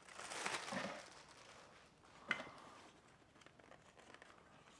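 Faint rustling of packaging being handled in the first second or so, then a single sharp click a little over two seconds in.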